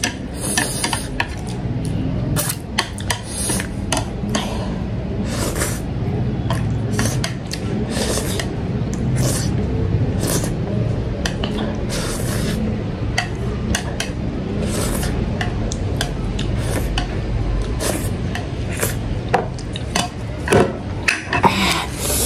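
Chopsticks scraping and clicking on a plate as the last Buldak ramen noodles are picked up and eaten, in many short irregular strokes. A brief rustling hiss comes near the end.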